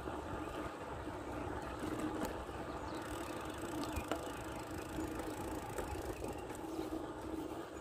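Wind rushing over the microphone and steady rolling noise from a bicycle being ridden, with a few faint clicks.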